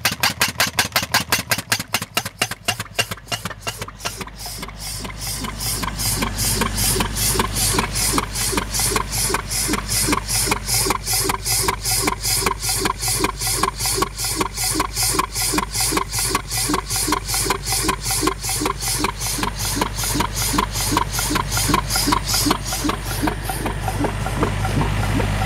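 Pneumatic soil-piercing tool (an impact mole) hammering in a fast, even rhythm as compressed air drives its piston, with a steady low engine drone underneath. The hammering eases for a couple of seconds a little way in, then runs steadily again.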